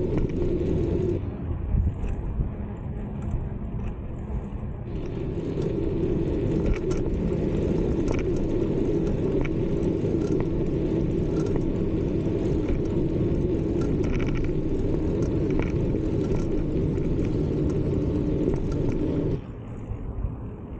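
Riding noise of a bicycle on a bike path: a steady low rumble of wind on the microphone and rolling tyres, with light rattles and ticks throughout. The rumble eases for a few seconds about a second in, and again near the end.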